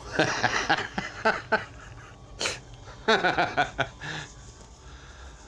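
A man's voice, muttering without clear words in two short stretches, with one short sharp noise about two and a half seconds in.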